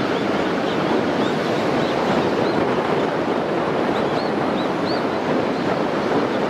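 Strong wind blowing on the microphone, a steady dense rush of noise. Faint short high chirps come through it now and then.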